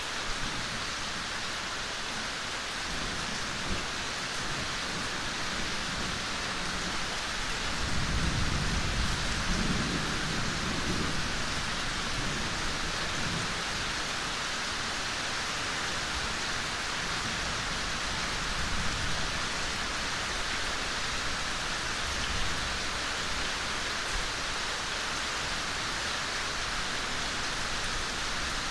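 Steady gentle rain falling on forest foliage, an even hiss with a scattering of separate drop taps. A low rumble swells and fades about eight to twelve seconds in.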